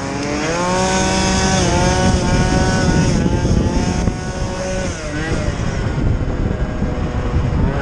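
Small two-stroke scooter engine, a Piaggio Zip's, revving hard under acceleration. Its note climbs over the first second or so and holds high, dips about five seconds in, and rises again near the end.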